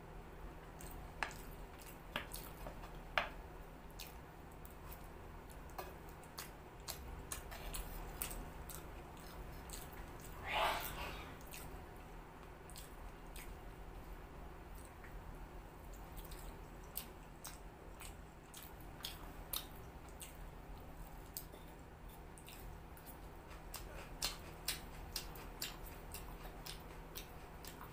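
Faint eating sounds: chewing noodles, with scattered light clicks of a steel fork and spoon against a terracotta plate and clay bowl. One louder, longer noise about ten and a half seconds in.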